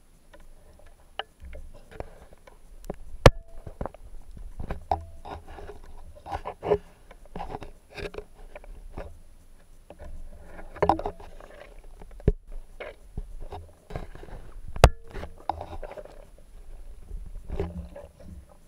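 Underwater handling noise on a speargun-mounted camera: irregular scrapes, rustles and knocks as the diver swims and shifts his grip on the gun. Two sharp clicks, about twelve seconds apart, stand out as the loudest sounds.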